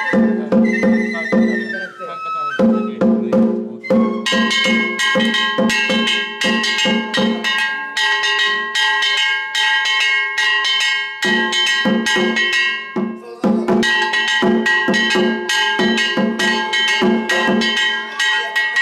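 Danjiri float festival music: taiko drums and brass gongs (kane) beaten in a fast, steady rhythm of about five strokes a second, the gongs ringing on between strokes. The playing breaks off briefly twice and picks up again.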